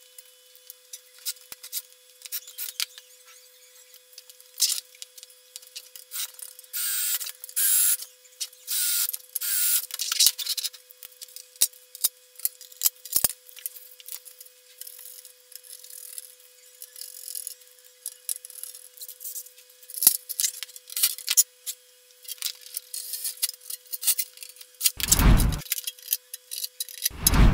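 Hand work on a sheet-metal amplifier chassis: scattered clicks and knocks, with a run of rasping scraping strokes about seven to ten seconds in, over a faint steady tone. Two heavy thumps near the end.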